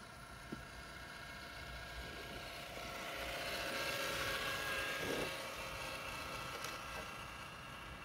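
Traxxas TRX-4 RC crawler's electric motor and gear drivetrain whining steadily, swelling louder over a few seconds and then fading away.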